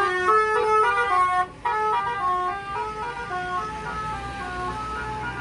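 A tour bus's musical horn playing a quick melody of short notes that step up and down in pitch. Loud at first, it breaks off briefly about a second and a half in, then the tune carries on more softly.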